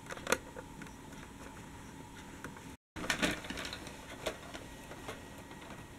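Toy tram rolling along plastic toy track, its wheels giving light, irregular clicks and ticks over a faint steady hum. The sound cuts out briefly a little before halfway, then comes back with a short cluster of louder clicks.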